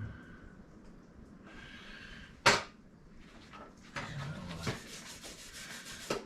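Workshop handling noises: one sharp, loud metallic clank about two and a half seconds in, then a run of quick scraping strokes near the end.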